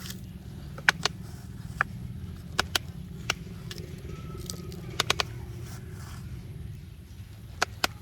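Small electric motors of radio-controlled construction models running with a steady low drone. About a dozen sharp clicks come at irregular intervals.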